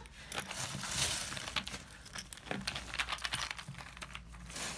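A squirrel tugging at a red mesh net bag of nuts, the netting rustling and crinkling in quick, irregular scratches.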